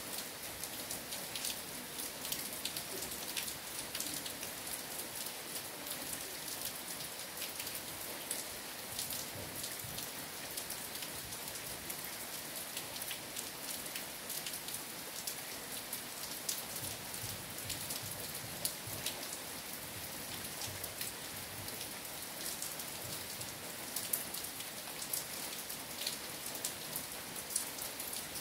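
Steady rain falling, a constant hiss with many separate drops ticking sharply throughout.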